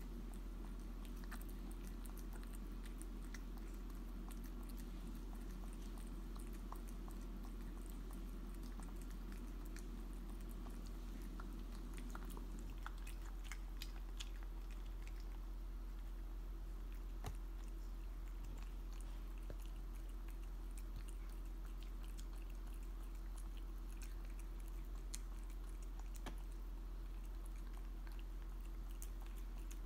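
A cat eating raw minced meat from a glass bowl: soft chewing and licking with scattered small clicks, over a steady low hum. A low rumbling noise under it stops about halfway through.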